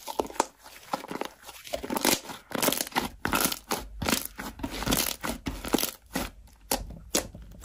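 Hands stretching, squeezing and kneading a thick white slime, giving a run of irregular sticky crackles and pops that grow denser after about two seconds.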